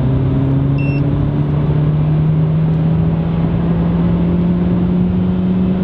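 Renault Clio 1.2 TCe turbo petrol engine heard from inside the cabin, accelerating under load in third gear during an 80–120 km/h run, its note rising slowly and steadily. A short electronic beep about a second in.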